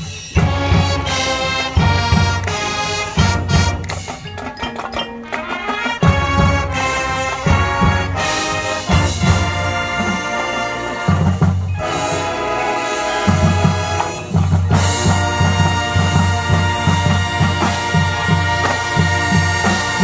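High school marching band playing a rock arrangement: brass section over a driving beat from the drums. The beat drops out briefly twice, and a long high note is held through the last few seconds.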